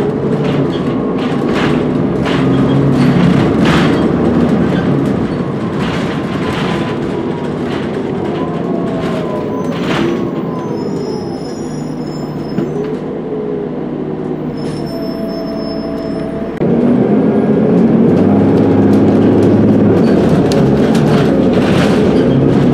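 2016 Gillig Advantage transit bus's Cummins ISL9 diesel engine and Allison transmission running while the bus drives, with rattles and knocks from the body. The engine eases off in the middle, then turns suddenly louder about two-thirds of the way in and stays that way.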